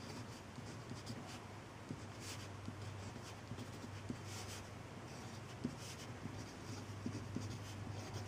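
Pen scratching on paper as a row of digits is written, a series of short faint strokes, one for each figure, over a low steady hum.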